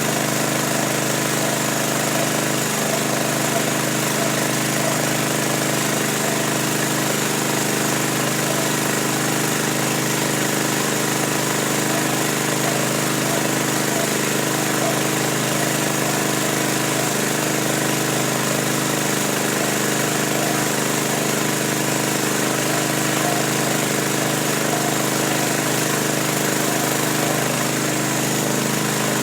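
A small motor running steadily at constant speed, giving an even drone with a fixed pitch.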